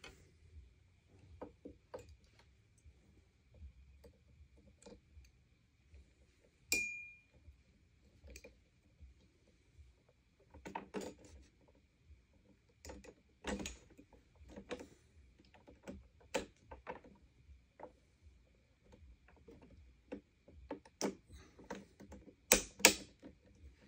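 Scattered clicks, taps and rattles of hands handling the power cord and metal handle tube of a Sanitaire SL635B vacuum cleaner during assembly, with one sharp ringing metallic ping about seven seconds in and a cluster of louder clicks near the end.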